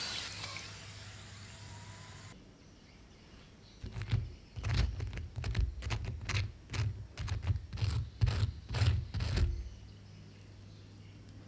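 Hot oil sizzling around a basket of fries as it is lifted out of the fryer, fading and then cutting off about two seconds in. From about four seconds in comes a quick run of loud crunches, about three a second, from crispy french fries being bitten and chewed.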